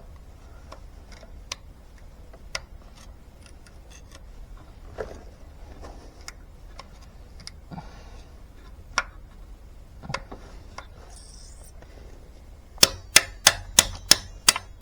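Scattered light taps and clinks of tools on metal, then near the end a fast run of sharp hammer blows, about four a second, striking at the rusted-out freeze plug in an International Harvester LB engine block to knock it out.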